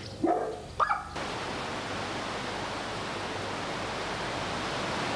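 A dog barks twice in quick succession. Then the steady rush of flowing river water takes over, growing slightly louder toward the end.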